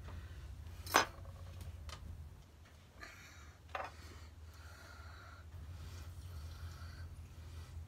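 A table knife tapping a ceramic bowl: one sharp tap about a second in and a softer knock near four seconds, over a low steady hum.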